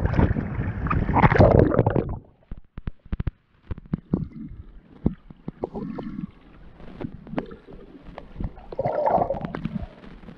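Seawater sloshing and splashing around a camera at the surface; about two seconds in the camera goes under and the sound turns muffled underwater noise, with scattered sharp clicks and a few bubbly gurgles.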